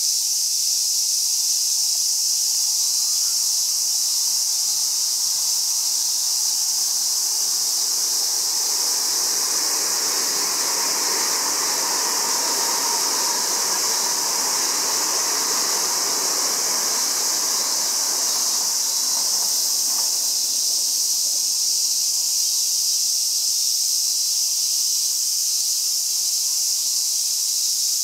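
A Tokyo Metro 6000 series electric train running past on the rails below, its sound swelling about eight seconds in, loudest midway, and fading out by about twenty seconds. A steady, loud chorus of cicadas carries on throughout.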